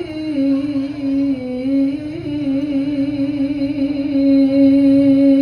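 A Quran reciter's voice in melodic recitation, holding one long ornamented note with a slight waver that grows louder near the end.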